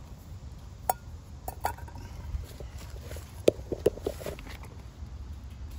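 Camping gear being handled and set down on a rock, and movement over dry leaf litter: scattered sharp knocks and clicks, with a quick cluster of them about three and a half to four and a half seconds in, over a steady low rumble.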